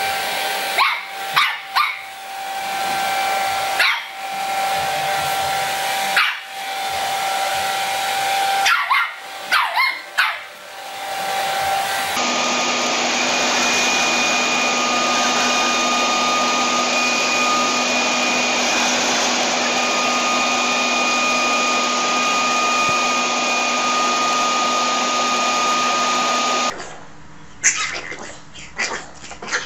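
A hand-held hair dryer blowing steadily while a small dog barks at it repeatedly. About twelve seconds in, a leaf blower runs steadily with a thin whine. Near the end come a few light taps and clicks of a puppy scrabbling on a wooden floor.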